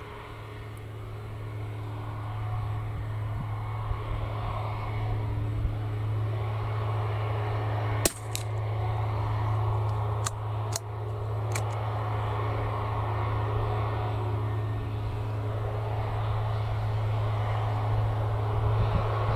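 One .22 LR shot from an Anschutz 1761 bolt-action rifle about eight seconds in, a short sharp crack followed over the next three seconds by a few clicks of the bolt being worked. Under it, the steady low drone of a propeller aircraft's engine slowly grows louder.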